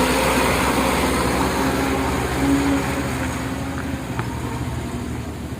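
Heavy truck driving past close by, its engine and tyre noise loud at first and fading steadily as it moves away.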